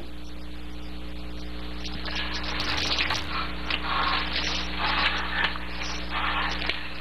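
Steady electrical hum with tape hiss on an old film soundtrack. From about two seconds in, short hissing noises come roughly once a second.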